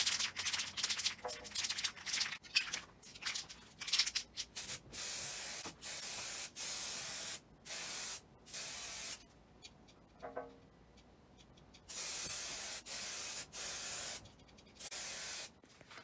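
Aerosol spray can of two-part urethane clear coat hissing in a run of short passes, each about half a second to a second long. The spraying pauses for a couple of seconds just past the middle, then resumes.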